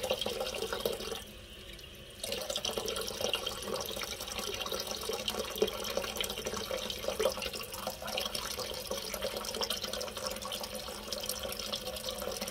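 Water from the fill valve rushing steadily into a 3.5-gallon toilet tank as it refills after a flush, not yet full. The sound dips briefly about a second in.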